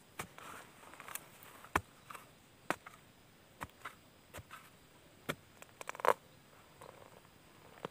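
Long digging stick jabbed repeatedly into dry, grassy soil to dig out a cricket burrow: irregular sharp knocks about once a second, with short scrapes of loosened earth and grass in between.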